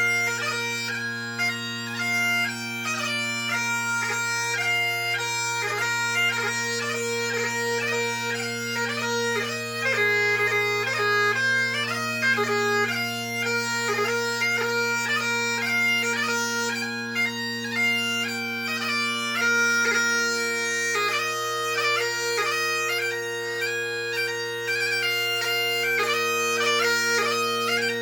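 Great Highland bagpipe played solo. The drones hold a steady low chord under a brisk, ornamented chanter melody from a competition March, Strathspey and Reel set.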